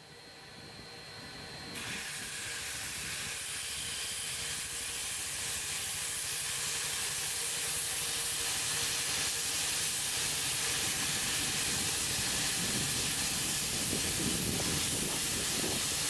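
Steam hissing steadily from an LMS Stanier Class 5 ('Black Five') steam locomotive, No. 44932. The hiss fades in over the first couple of seconds.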